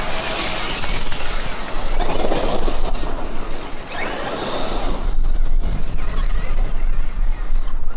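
Traxxas X-Maxx RC monster truck driving over the trail: a loud, rough rumble of tyres and drivetrain that swells and eases as it runs.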